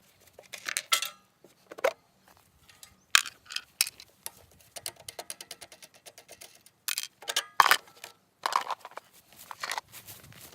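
Sharp clinks and knocks of hard objects being handled, with a run of quick, even clicks around the middle.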